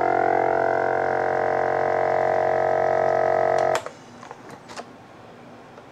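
Nesco VS12 vacuum sealer's pump running with a steady hum, which cuts off suddenly a little under four seconds in. A few faint clicks follow.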